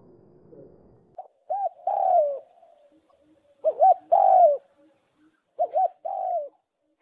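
A bird cooing: three phrases, each two short notes and a longer falling note, starting about a second in and repeating about every two seconds.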